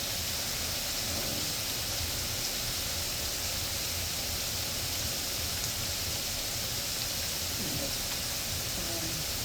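Shrimp frying in hot oil, an even, unbroken sizzle.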